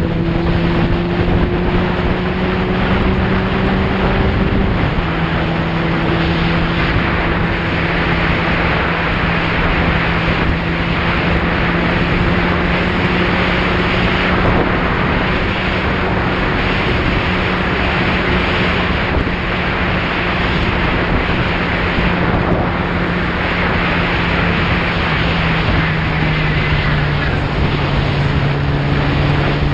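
Motorcycle engine running at steady cruising speed on a country road, largely buried under loud wind rushing over the camera microphone. The engine note rises slowly, then drops a little about five seconds in and again near the end.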